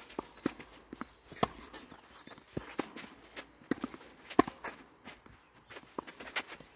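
Tennis rally on a clay court: sharp pops of racket strings striking the ball, one every second or two, with footsteps scuffing on the clay between them. The loudest pop, about four and a half seconds in, is the near player's backhand.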